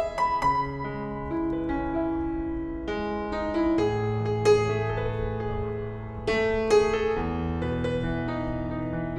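Background music: a slow, gentle piano piece, with notes struck and held as the chords change.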